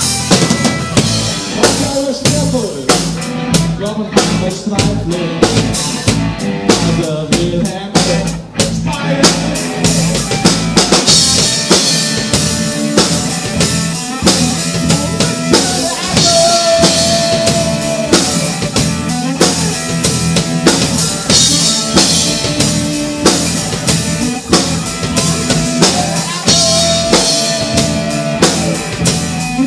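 A band playing live, with a drum kit keeping a steady beat of bass drum and snare under sustained instrument notes.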